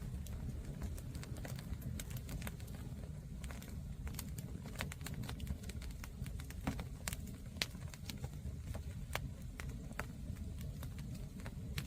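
Wood bonfire crackling, with irregular sharp pops and snaps, a few louder than the rest, over a low steady rumble.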